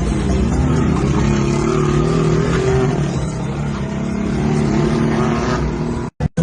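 Motor vehicle engines running and revving, their pitch rising and falling. The sound cuts out briefly near the end.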